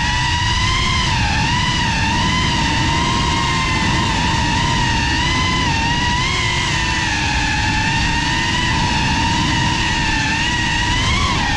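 Motors and propellers of a GEPRC CineLog35 FPV drone whining in flight, the pitch wavering up and down with the throttle and rising briefly near the end, over wind rush on the onboard microphone.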